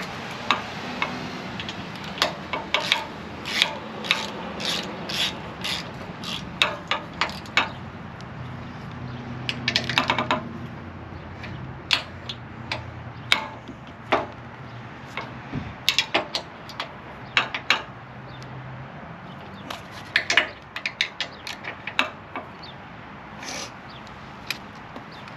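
Ratchet wrench clicking in irregular runs of short strokes, tightening bolts on a trailer-tongue jack mount.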